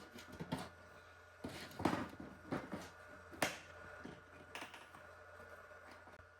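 Scattered faint clicks and rustles of car wiring and connectors being handled by hand, with one sharper snap about three and a half seconds in.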